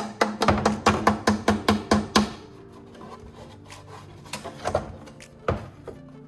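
Rapid scraping strokes, about five a second for two seconds, then a few scattered strokes, over background music.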